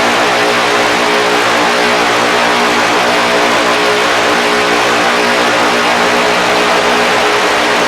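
Static noise drone from guitar effects pedals: a dense, loud hiss with several steady low tones held underneath, unchanging throughout.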